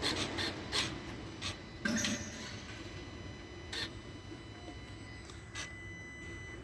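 Electric actuators of a Ram Rampage 2.2 turbo diesel, on the EGR valve and electronic throttle body, clicking in short irregular ticks just after the engine is switched off. This is the normal shutdown cycling of the actuators, not a fault.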